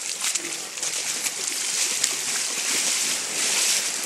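Water splashing and sloshing: a steady rushing hiss with scattered small crackles.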